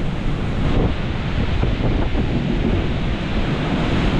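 Steady roar of a severe thunderstorm's wind and driving rain, with strong gusts buffeting the microphone in a low rumble.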